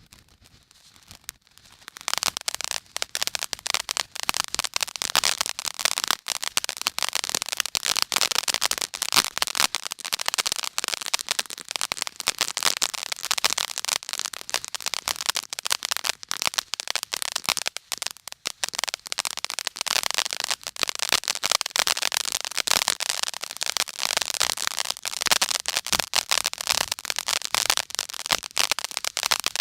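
Fireworks crackling: a dense, rapid, unbroken string of small sharp bangs that starts suddenly about two seconds in and keeps going without a pause.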